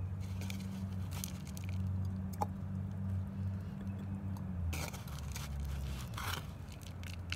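Clumps of damp creek clay being scraped up by hand from a bowl and dropped into a glass jar of water: a few short crumbly scrapes. A steady low hum runs underneath.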